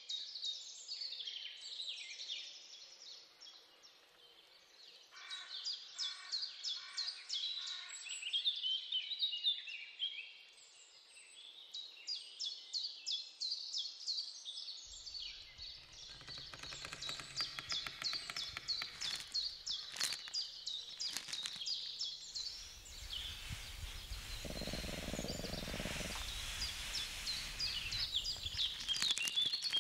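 Small birds chirping and singing in rapid, overlapping phrases. About halfway through, a low rumble comes in under the birdsong, with a few sharp clicks. A louder rustling noise follows near the end.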